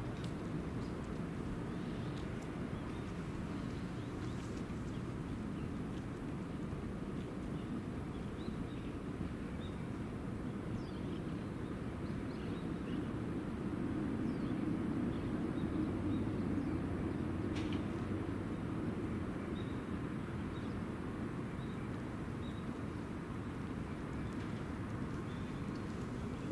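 Steady low rumble of trains and traffic on a busy multi-track railway, swelling for a few seconds in the middle as a train goes by. Small birds chirp here and there over it.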